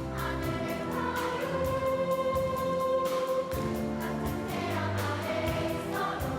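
Children's choir singing, holding one long note through the middle of the phrase.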